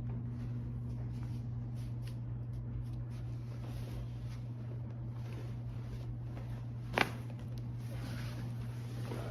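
A single sharp crack from a joint popping during a chiropractic adjustment, about seven seconds in, over a steady low hum and faint rustling of clothes and movement on the treatment table.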